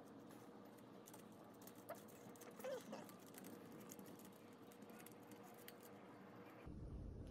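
Near silence with faint, scattered light clicks and taps of small bike parts being handled and fitted at the front axle; a low hum comes in near the end.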